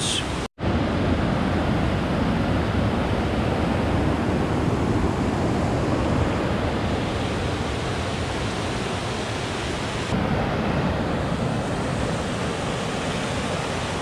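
Amnicon River rushing over rock ledges in a series of small waterfalls and cascades: a steady rush of white water, cut off for an instant about half a second in.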